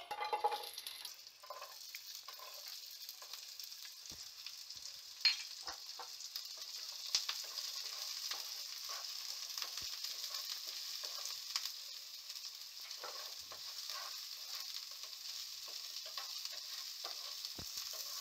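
Chopped onion sizzling in hot oil in a non-stick frying pan, starting about a second in as the onion goes in. A wooden spatula stirs it, with scattered scrapes and taps against the pan.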